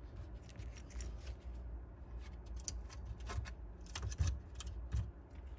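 Scattered small clicks and rustles of wires and small plastic connectors being handled, over a steady low hum.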